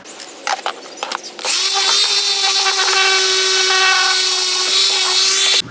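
Electric sander starting about a second and a half in and running at a steady pitch while sanding a wooden piece, then cutting off abruptly near the end. A few light handling knocks come before it.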